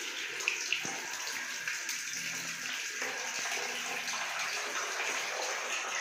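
Water rushing steadily into a toilet cistern through its float-ball fill valve after the angle stop valve is opened: the tank refilling after its siphon washer was replaced. A couple of light knocks in the first second.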